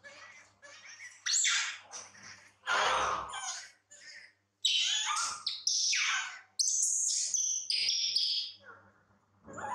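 Baby macaque crying in a string of high, squeaky calls and screeches, some short and some drawn out, the loudest and highest about two-thirds of the way through.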